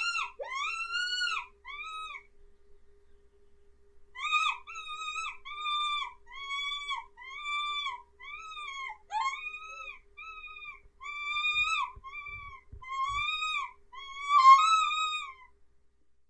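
Mouse distress squeaks used as a predator lure: short, high-pitched squeaks that rise and fall, repeated about twice a second. They pause briefly after about two seconds, run on for eleven seconds more, then stop shortly before the end.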